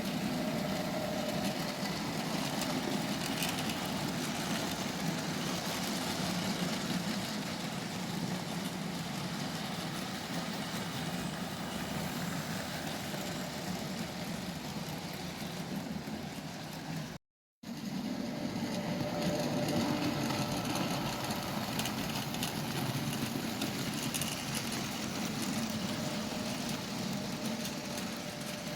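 OO-gauge model railway trains running on the layout: a steady electric motor hum with wheels rolling on the track. The sound cuts out completely for a moment a little over halfway through.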